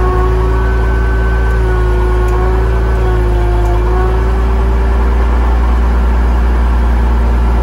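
Bearhawk light aircraft's piston engine idling steadily at about 1,100 rpm, heard from inside the cockpit, freshly started and still cold.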